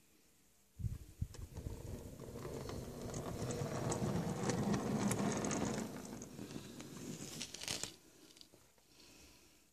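Metal wheels of 7mm-scale model goods wagons rolling on steel rails through an O-MF finescale turnout. A couple of sharp clicks about a second in, then a rattling rumble that builds, holds, and drops away suddenly at about eight seconds.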